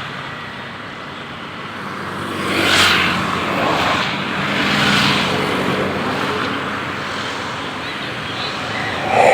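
Road vehicles passing close by: a steady engine hum under tyre noise, swelling as vehicles go past about three and five seconds in.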